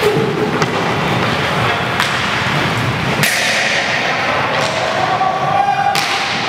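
Inline hockey play on a wooden sports-hall floor: a handful of sharp knocks from sticks striking the puck and the floor, over the steady rumble of skate wheels rolling on the boards.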